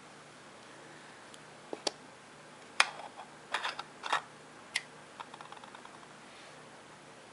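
Light, irregular clicks and clacks from a homemade cardboard and drink-can walking beam Stirling engine's parts, a dozen or so sharp knocks spread over a few seconds, then a quick patter of small ticks. A faint low hum runs underneath.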